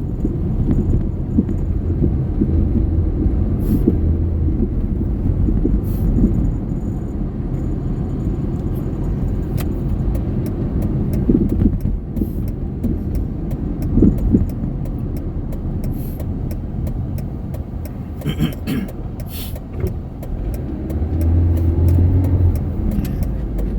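Kia Rio being driven, heard from inside the cabin: steady low road and engine rumble with scattered short clicks and knocks.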